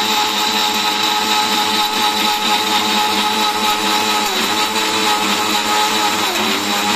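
Bajaj Classic 750 mixer grinder running at full speed, blending a smoothie in its stainless-steel jar: a loud, steady motor whine whose pitch sags briefly twice, about four and six seconds in.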